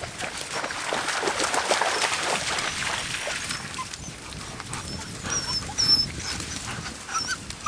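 White Swiss Shepherd puppies playing, with short high-pitched squeaks and whimpers in the second half. A sharp knock about six seconds in is the loudest sound.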